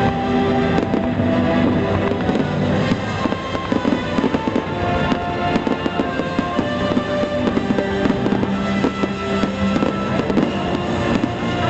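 Fireworks bursting and crackling in a rapid, continuous barrage, with music playing underneath.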